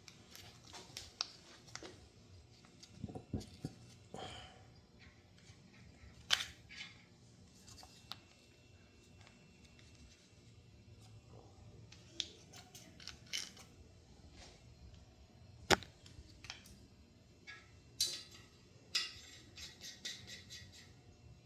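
Scattered metal clicks and clinks from hand work on an LS engine block's main bearing caps, with nuts being put onto the main cap studs. The clicks come at irregular times, with the sharpest clinks about six seconds in and near sixteen seconds.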